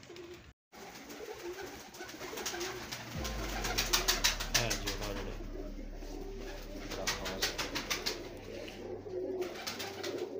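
Domestic pigeons cooing, with short runs of rapid rustling or fluttering close by as the birds are handled.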